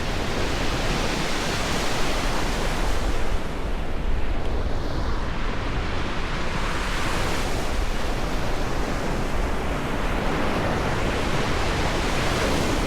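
Ocean surf: waves breaking and washing in as a continuous rush that swells roughly every four seconds, with a steady low rumble underneath.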